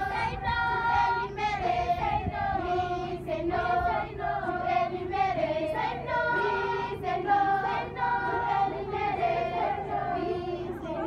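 A large group of schoolchildren singing a song together as they march, many young voices carrying one melody without a break.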